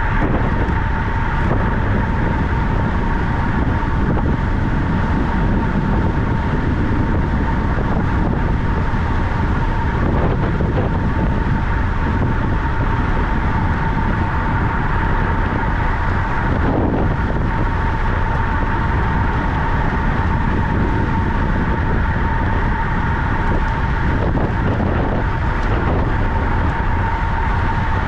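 Loud, steady wind rush with a constant high hum running through it, as from a camera carried on a bicycle racing round the track.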